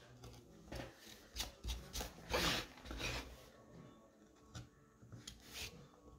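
Carving knife slicing and scraping into a wooden board in short strokes, with the loudest, longest cut about two and a half seconds in; the board is shifted and turned on the cork mat partway through.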